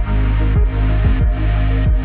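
Background electronic chillout music with a steady kick-drum beat, about one beat every 0.6 seconds, over a sustained bass.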